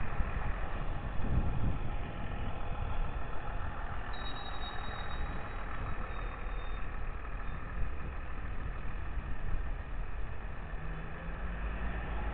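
Street traffic noise: vehicle engines running under a steady low rumble. A faint high whine comes in about four seconds in and lasts a few seconds.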